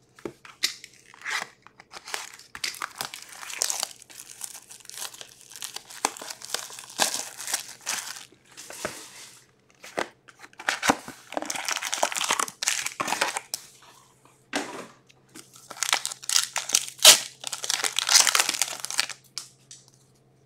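Hands tearing open a sealed trading-card box and crinkling its wrapping and cardboard in irregular bursts of rustling, heaviest in the second half, then shuffling the cards out.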